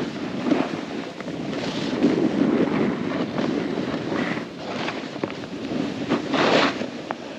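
Wind rushing over the microphone during a snowboard run, with the board's edges hissing and scraping over snow in repeated swells, the strongest about two, four and six and a half seconds in.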